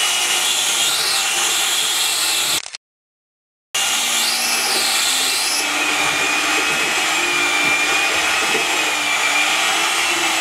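Electric hand mixer running steadily, its beaters whirring through batter in a plastic bowl, with a whine that wavers slightly in pitch. The sound cuts out completely for about a second near three seconds in, then carries on.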